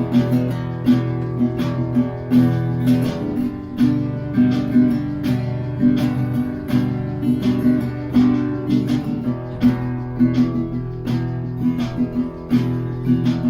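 Acoustic guitar music, plucked and strummed in a steady rhythm of about two strokes a second.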